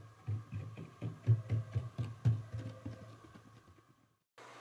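A cat's paws thumping and tapping on a wooden floor in a quick, uneven run of soft thuds, the loudest about a second and two seconds in, dying away and then cutting off just before the end.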